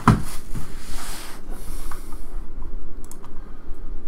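Plastic shrink wrap crinkling as it is torn and pulled off a cardboard trading-card box, with a thump just at the start. The crinkling stops about a second and a half in, leaving a few light taps as the box is handled and set down.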